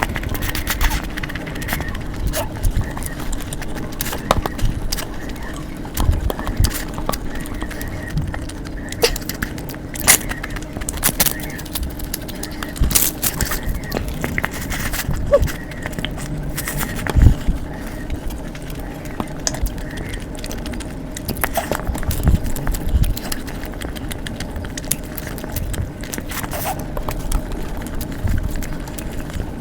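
Close-up eating sounds: irregular clicks, taps and smacks over a steady low hum.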